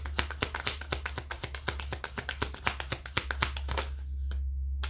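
A deck of tarot cards shuffled by hand: a rapid run of crisp card clicks, about seven a second, that stops about three and a half seconds in.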